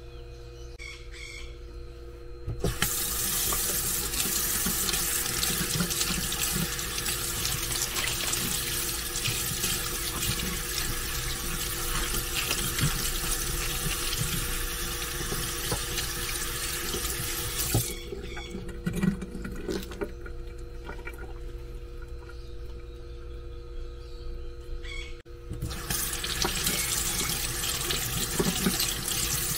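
Kitchen faucet running into the sink, the stream splashing over green onions being rinsed under it. The water comes on about three seconds in, stops a little past halfway, and runs again near the end.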